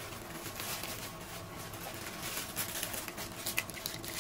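Plastic bags rustling and crinkling as they are pulled open and handled, ending with a sharp tap.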